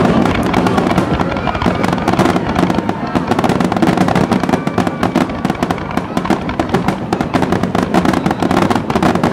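Fireworks barrage: aerial shells bursting in rapid, overlapping succession, a dense continuous run of bangs and crackling.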